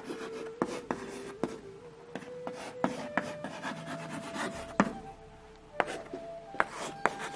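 Chalk writing on a blackboard: quick taps and short scrapes as the letters are formed. Behind them a faint steady tone steps slowly upward in pitch.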